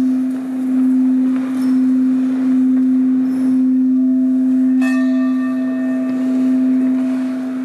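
Black crystal singing bowl sounding one deep, steady tone that gently swells and eases while a padded mallet is worked around its rim. About five seconds in, a higher ring with several overtones is struck and lingers over the hum.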